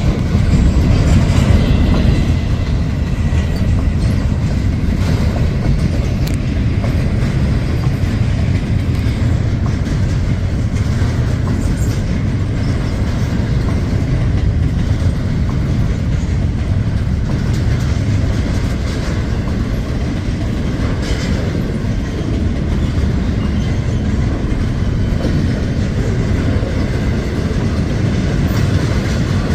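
Norfolk Southern freight train rolling past close by, a steady heavy rumble with the clack of its wheels over the rails.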